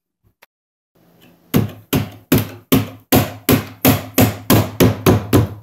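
A hand repeatedly striking a chrome corner piece to drive it down the grooves between a foosball table's wooden side and end panels: about a dozen even knocks, roughly two and a half a second, starting about a second and a half in.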